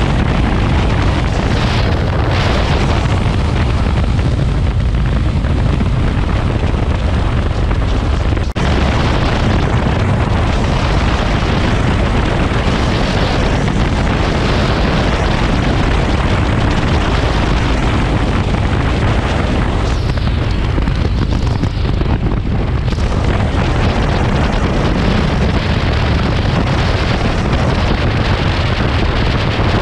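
Heavy, steady wind buffeting on a microphone mounted on a moving motorcycle at road speed, with the bike's engine and road noise buried underneath. The level briefly dips about eight and a half seconds in.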